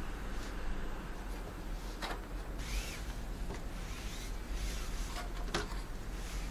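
Handling sounds from a PC case: two light knocks, about two seconds in and near the end, with rubbing in between as the case is moved and its hinged glass side panel is swung open.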